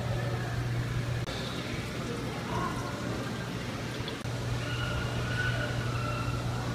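Steady low hum over a wash of water noise from running aquarium pumps and filters. The hum weakens about a second in and comes back about four seconds in.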